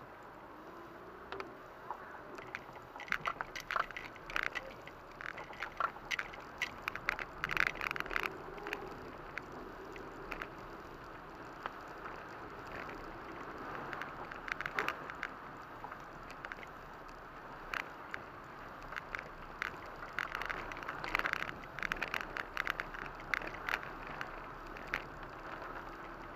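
Rain pattering irregularly on a car's roof and windscreen, heard from inside the cabin, over a steady hiss of tyres on the wet road. The drops come in denser spells near the start and again late on.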